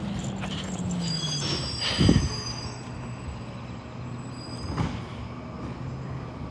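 Recycling truck slowing to a stop. Its engine note drops and its brakes squeal briefly, with a single low thump about two seconds in, then the engine runs steadily at a lower pitch.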